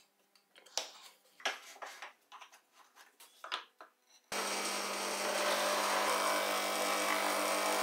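A few light knocks and clicks from handling tools. About four seconds in, a steady loud abrasive hiss with a motor hum starts suddenly: a woodturning gouge being sharpened against a sandpaper-covered wooden wheel spinning on a homemade lathe.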